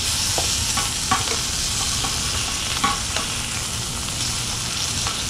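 Mangrove snapper fillets sizzling in hot oil in a frying pan, with a metal spatula scraping and knocking against the pan a few times as the fillets are turned.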